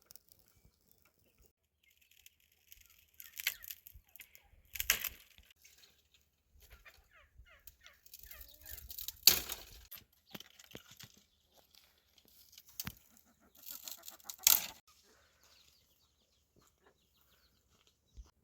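Chickens clucking in short, scattered calls, with a handful of louder sharp, rustling sounds among them, the loudest about nine seconds in.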